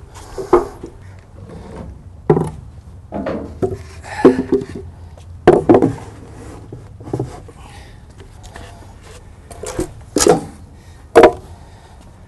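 Wooden apple boxes being set down on concrete and shifted into place under dolly track: a string of separate, irregular wooden knocks and clunks, some in quick pairs.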